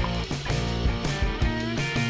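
Upbeat rock intro music: guitar over a steady drum beat, with a guitar line that bends in pitch in the second half.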